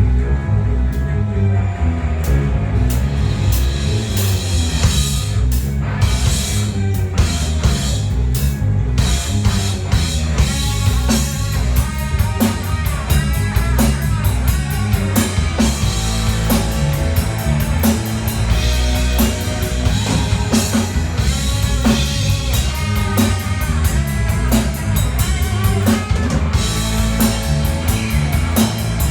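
A live band playing rock music: drum kit, bass and guitar.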